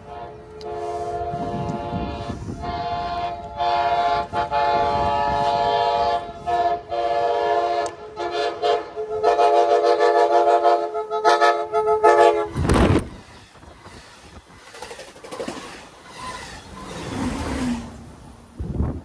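Multi-tone locomotive horn of an approaching train sounding a series of blasts, several long and one or two short, with a brief loud burst of noise a little after the horn stops. Fainter train rumble follows.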